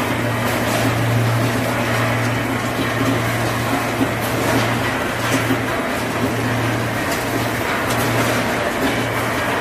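Conveyor belts and packing machinery running on a food production line: a steady low hum over continuous mechanical noise, with faint light clicks.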